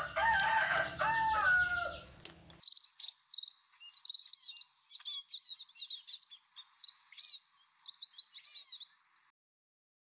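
A rooster crows loudly, then small songbirds chirp and trill in quick, high notes for several seconds before the sound cuts off suddenly near the end.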